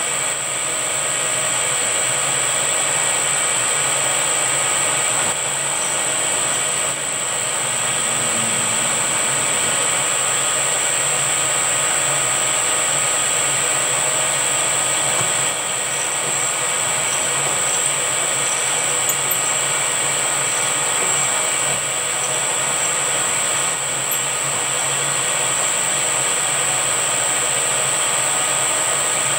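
Milling machine running steadily with a constant high whine while its end mill cuts a cam lobe on a silver-steel camshaft held in a dividing head.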